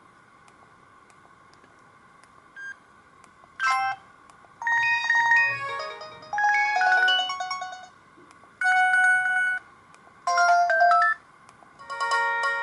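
Sony Ericsson K200i mobile phone playing short electronic tunes through its small speaker. After a quiet start, about six separate jingles of roughly a second each come one after another, a second or two apart.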